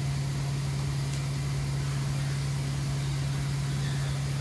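A steady, low-pitched mechanical hum, unchanging throughout, as from a motor or fan running in the workshop.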